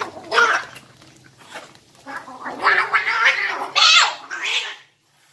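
Two young ginger cats fighting, with harsh cat cries in bursts: a short one at the start, then a longer, louder stretch from about two seconds in that cuts off suddenly near the end.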